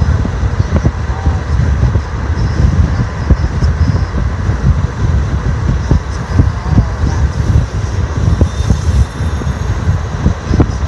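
Car driving at speed: a steady low road rumble with uneven gusts of wind buffeting the microphone.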